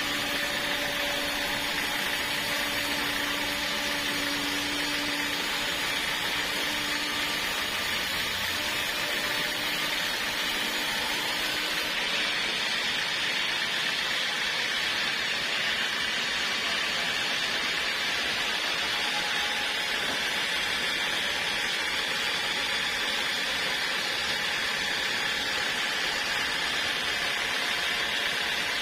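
Sawmill saw running steadily, a continuous even machine noise with no breaks.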